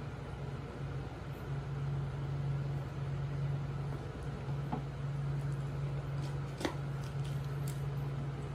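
Aquarium pump running with a steady low hum over the hiss of the tank water. A few light clicks and taps come in the second half, the sharpest about two-thirds of the way through.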